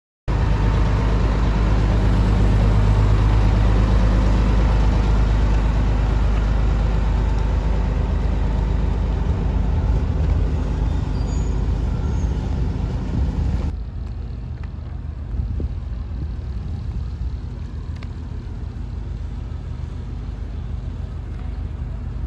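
Loud, steady low rumble of heavy road vehicles, with a hiss of air, that changes abruptly about fourteen seconds in to a quieter rumble of the same kind.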